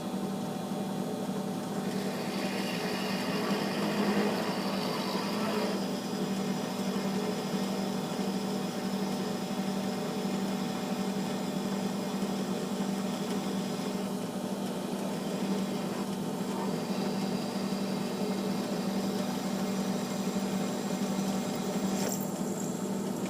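Electric drill running steadily, its motor humming as the bit cuts slowly into a galvanized steel reducer lubricated with oil; the bit goes through easily, "like butter".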